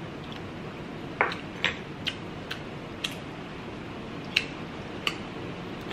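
A person chewing food close to the microphone: irregular, sharp, wet mouth clicks and smacks, about seven of them, spaced unevenly, over a steady background hiss.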